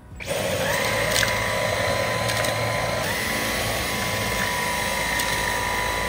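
Dyson V15 Detect cordless stick vacuum running with its hair screw tool over sofa upholstery: a steady motor whine that starts about a quarter second in and rises slightly in pitch about halfway through, with a few faint ticks.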